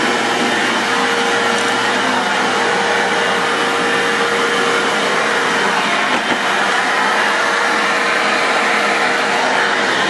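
A Bissell MultiCyclonic Pet upright/canister vacuum cleaner running steadily, with a whine in its motor noise that fades out about halfway through.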